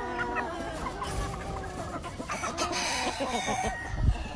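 A flock of chickens clucking, several birds' short calls overlapping.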